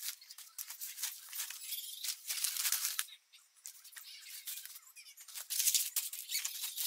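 Clothes and fabric packing cubes rustling and crinkling as they are stuffed and pressed down into a hard-shell suitcase, in quick, irregular bursts.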